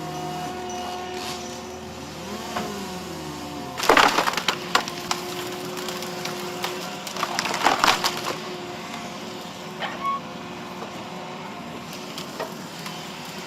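A wood-processing machine running steadily with a hum, while wood cracks and splinters under it in two loud bursts, about four seconds in and again around eight seconds, with a few smaller snaps later.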